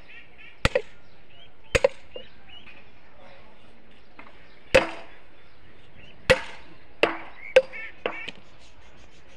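A hammer striking steel rail fastening clips on a railway track, about eight sharp clanks at irregular intervals, each with a short metallic ring. The clips are being driven in to lock the rail to the sleepers.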